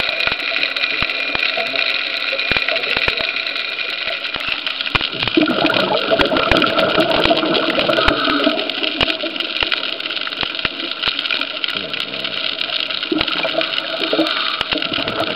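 Underwater sound picked up by the camera beside an oil-platform leg: a steady drone with several fixed pitches, peppered with frequent irregular sharp clicks and crackles.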